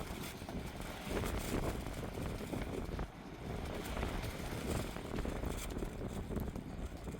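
Strong wind buffeting the microphone: a steady low rumble that rises and falls with the gusts.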